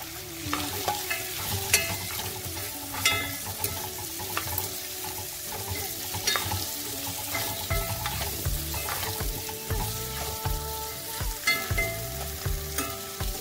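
Chopped onion, tomato and potato sizzling in oil in a clay pot, with a steady hiss. The pieces are stirred with a spoon that scrapes and clicks against the pot at irregular moments, with a few dull knocks in the second half.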